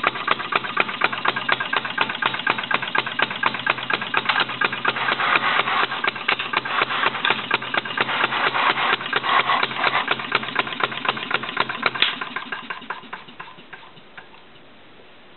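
RMC Type D non-compression gasoline engine running with an even beat of about four firing pops a second. About twelve seconds in the beat weakens and dies away as the engine slows to a stop.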